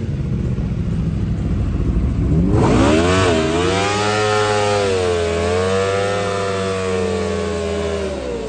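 Aprilia RSV4's V4 engine idling with a low rumble, then revved hard about two and a half seconds in and held at high revs with a wavering pitch as the rear tyre spins in a burnout.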